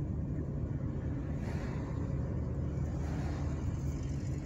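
Steady low rumble of a moving car heard from inside the cabin: tyre, road and engine noise while driving at town speed, with a faint swell of higher tyre hiss twice.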